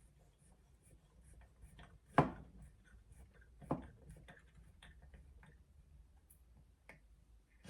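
Faint scattered clicks and ticks of a small hook being screwed by hand into a pre-drilled hole in a bird cage, with two louder knocks about two and three and a half seconds in.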